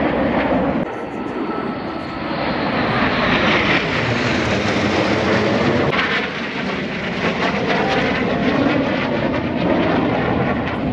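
Red Arrows' BAE Hawk jet trainers flying a formation pass, a loud steady jet roar. The roar drops briefly about a second in, then builds again, with the pitch sweeping as the jets pass.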